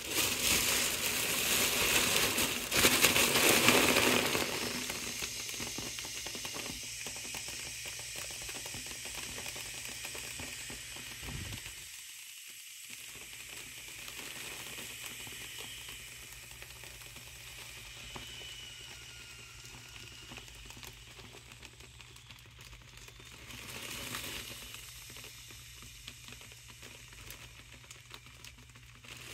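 Air hissing out of a foil Mylar balloon through a straw pushed into its fill valve, with the foil crinkling under pressing hands. Loudest in the first few seconds, then a steadier, fading hiss, with a brief louder stretch near the end.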